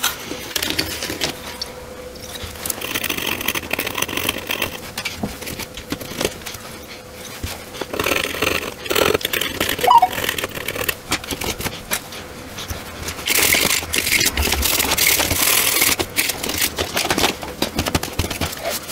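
Desoldering on a TV power-supply circuit board: a soldering iron and hand tools scraping and clicking against the board and its solder joints, with a few stretches of hiss lasting a second or two.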